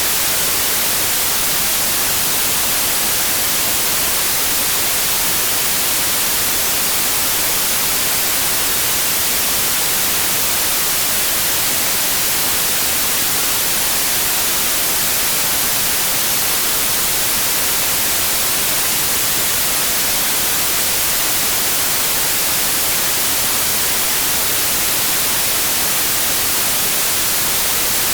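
Steady white noise: an even hiss across all pitches, brightest in the highs, with no change in level throughout.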